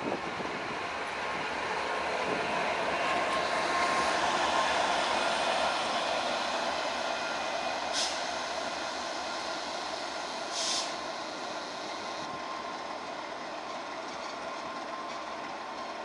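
A GM diesel-electric locomotive rolls slowly past; its engine and running noise swell over the first few seconds and then ease off. Two short air hisses come from the brakes, about 8 and 11 seconds in, as it creeps up to couple onto a passenger train.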